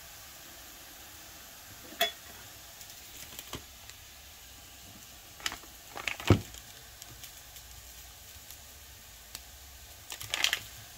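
Chicken goujons frying with a faint, steady sizzle in a pan. Over it come a few sharp clicks and knocks from a glass jar of gherkins being handled and its lid taken off. The loudest knock is about six seconds in, and a quick cluster of clicks comes near the end.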